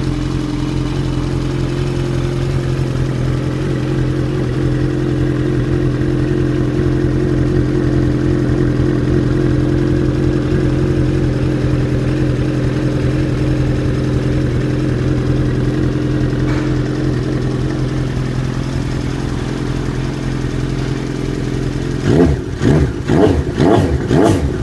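Suzuki Bandit 1250's inline-four engine idling steadily through an aftermarket stainless-steel megaphone exhaust tip. Near the end it is blipped in a rapid series of short revs.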